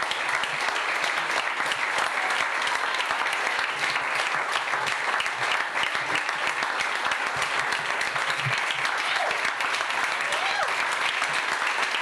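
Audience applauding steadily: many people clapping, with a few voices mixed in.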